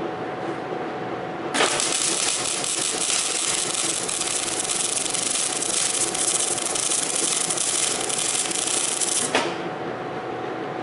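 MIG welding arc crackling steadily as a bead is run on a steel-tube frame joint, striking suddenly about a second and a half in and cutting off sharply after about eight seconds.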